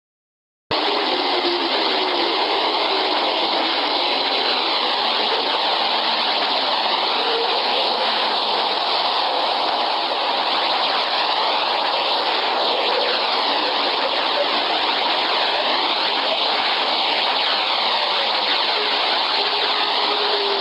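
Sonified space recording presented as the sound of planet Earth: a steady, dense rushing hiss with slow, sweeping phasing whooshes, starting abruptly about a second in.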